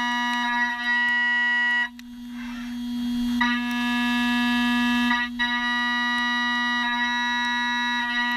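Milling cutter on a Hermle five-axis machining centre cutting a metal block, making a steady, high-pitched singing tone with many overtones. About two seconds in, the cutter leaves the cut for a second and a half, leaving only a hiss and the spindle's low hum, then re-engages and the tone returns.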